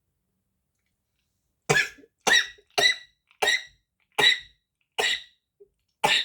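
A woman coughing in a fit, seven sharp coughs in quick succession, about one every two-thirds of a second.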